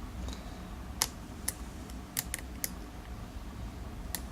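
A steel lock pick working the pin tumblers of a 7-pin Zeiss Ikon euro cylinder under tension: about six sharp, light metallic clicks at uneven intervals as pins are lifted and checked.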